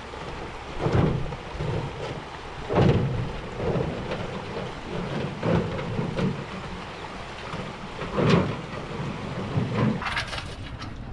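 Wind gusts buffeting the microphone in a series of uneven low rumbles over a steady outdoor hiss, with a few sharper crackles near the end.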